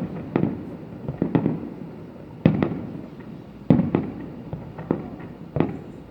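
Aerial fireworks bursting: about ten sharp booms at uneven intervals, each followed by a fading echo.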